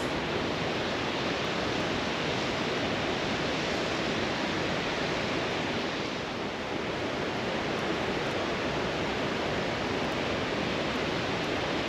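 Steady rush of river water pouring over a weir, dipping slightly about six seconds in.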